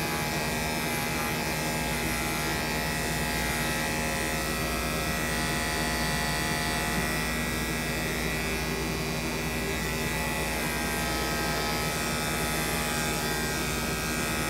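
Electric dog grooming clippers running with a steady buzz, clipping a dog's long coat.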